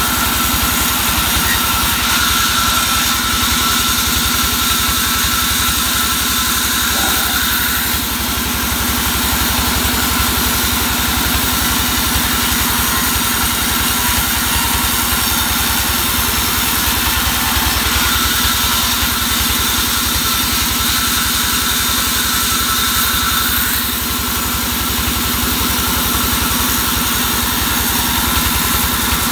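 Engine-driven sawmill band saw running steadily, with an even engine pulse and a steady whine above it.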